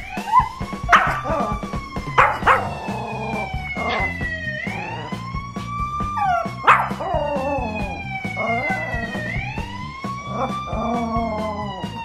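Police siren wailing, sweeping up and then slowly falling about every four and a half seconds. A Pomeranian puppy barks sharply a few times and howls along with it.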